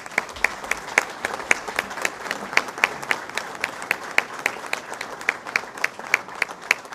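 Audience applauding, with one clapper near the microphone standing out at about four claps a second.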